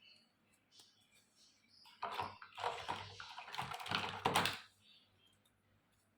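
Small plastic toy kitchen pieces clicking and clattering as they are handled. A few single clicks come first, then a dense run of clicks from about two seconds in that lasts some two and a half seconds.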